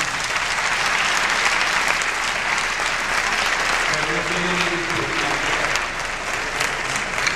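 Audience applauding in a large hall, a steady dense clapping throughout; a voice briefly shows through about four seconds in.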